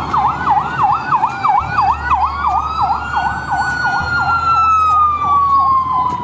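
Ambulance sirens: one in a fast rapid yelp throughout, about four to five sweeps a second, and a second in a slow wail that rises from about two seconds in and then falls slowly.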